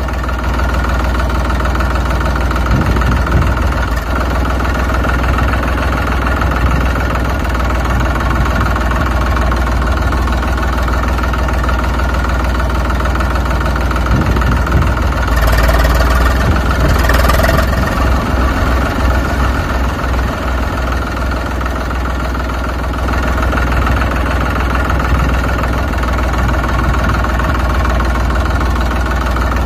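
Engine idling steadily, a tractor-like diesel running sound. About halfway through it briefly gets louder and harsher.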